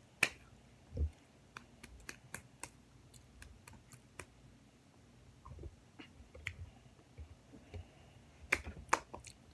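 Irregular sharp clicks and snaps from a girl's mouth and fingers while she licks and works her hands between bites. Two louder clicks come near the start and two near the end.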